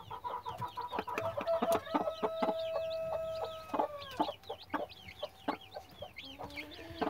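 Newly hatched chicks peeping over and over, with a broody hen clucking low beside them and giving one drawn-out call from about one to four seconds in. Scattered sharp taps of the hen pecking among eggshells and cracked corn.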